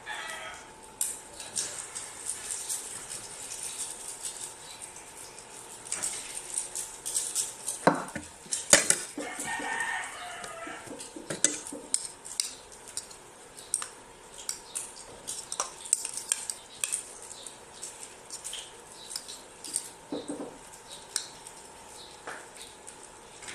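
Metal utensil scraping and clicking in a frying pan while tikoy (sticky rice cake) is cooked, with a faint sizzle underneath and a louder clatter about eight seconds in.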